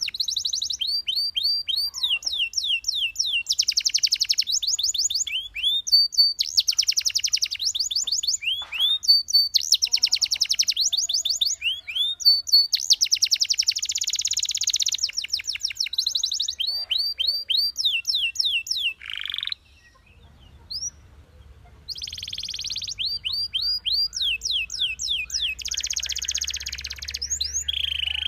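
Belgian canary singing: fast rolling trills alternating with runs of quick downward-sweeping whistled notes, broken by a pause of about two seconds roughly two-thirds of the way in.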